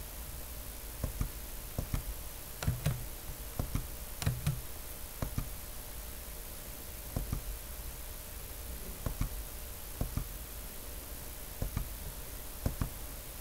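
Computer mouse clicks, about a dozen short sharp clicks at irregular intervals, over a steady faint hiss and hum.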